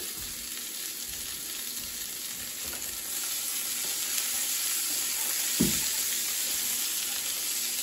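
Sliced sausage sizzling steadily in a cast-iron skillet, stirred with a spatula, the sizzle growing a little louder about halfway through. A short knock about two thirds of the way in.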